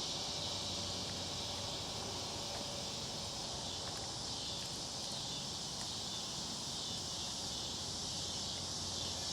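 Steady chorus of insects such as crickets: a continuous high-pitched shrill with no breaks.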